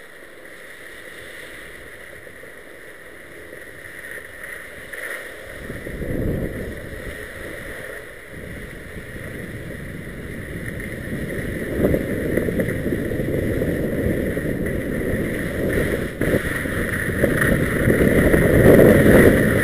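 Wind rushing over the camera microphone and skis sliding on slushy spring snow, faint at first and growing louder from about five seconds in.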